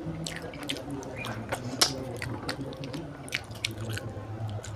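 Close-miked eating: wet chewing and lip smacking of a hand-fed mouthful of rice and curry, with many short sharp clicks and squishes. A low steady hum runs underneath and stops near the end.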